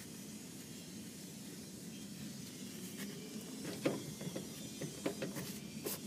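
Faint hand work under a vehicle over a low steady hiss. About halfway through come half a dozen small scattered clicks and taps of metal parts and wiring being handled.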